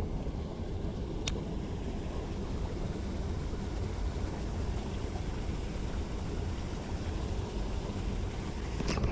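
Wind rumbling steadily on the microphone outdoors, with a sharp click about a second in and another near the end.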